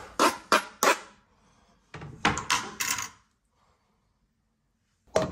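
A plastic cutting board tapped against the rim of a stainless steel mixing bowl to knock grated salami and cheese off it: three quick knocks, then a short rattling cluster about two seconds in. Near the end a single sharp crack as an egg is struck on the bowl's rim.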